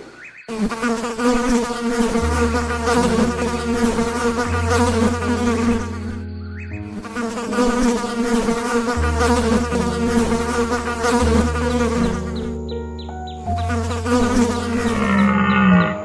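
A flying insect buzzing loudly and continuously, breaking off briefly twice, over low steady tones underneath.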